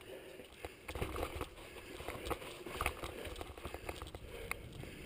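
Mountain bike rolling fast down a dirt trail, with irregular clicks, knocks and rattles from the tyres over stones and roots and the chain and frame clattering. Wind rumbles on the microphone from about a second in.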